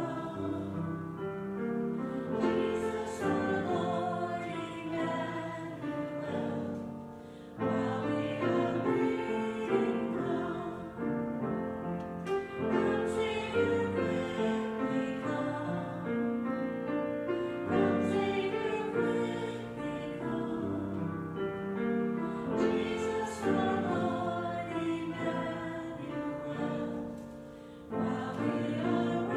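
Church postlude: slow choral music with sustained chords. The phrases break off briefly about seven and a half seconds in and again near the end.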